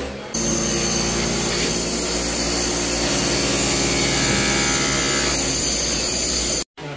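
Electric demolition hammer running steadily as it chips away tile and concrete. It cuts off suddenly near the end.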